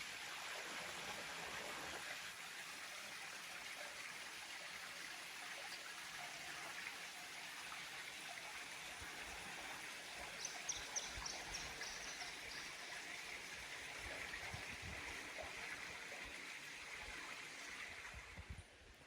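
Running water of a stream, a steady rushing hiss, with a few short high-pitched chirps about ten seconds in. The water sound drops away about a second before the end.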